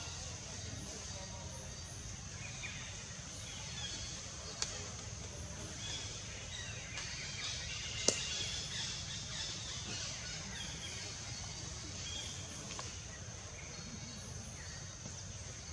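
Steady outdoor background noise with a constant high hiss and faint scattered chirps, broken by two sharp clicks, the louder one about eight seconds in.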